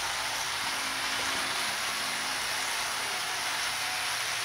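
HO scale model diesel locomotive and cars running steadily on Bachmann E-Z Track, a constant even running noise with a faint hiss.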